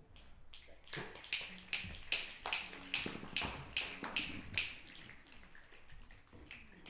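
A run of sharp, evenly spaced taps, about two and a half a second, starting about a second in and stopping after roughly four seconds.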